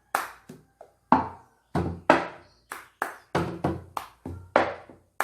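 Cup-rhythm pattern played at a quicker tempo: hand claps and a plastic cup knocked down on a hard surface, about three sharp hits a second in a repeating pattern.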